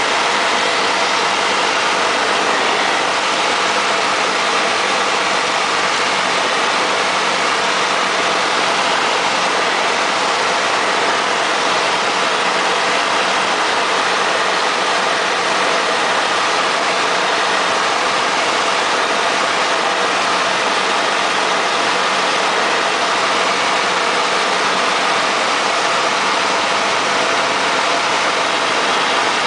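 Cockpit noise of a single-engine light airplane in flight: the piston engine and propeller drone steadily, with an even rushing hiss and a low hum, unchanging throughout.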